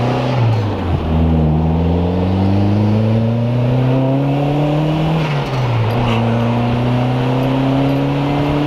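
Turbocharged Mazdaspeed Protege5 engine with a straight-pipe exhaust accelerating through the gears under load. The engine note climbs steadily, drops at an upshift about a second in and again a little past halfway, then climbs once more.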